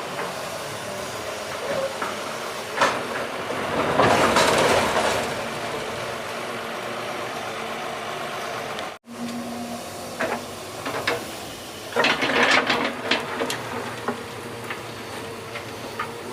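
Doosan 140 hydraulic excavator's diesel engine running steadily under working load, with louder noisy surges of hiss and scraping twice as the machine digs.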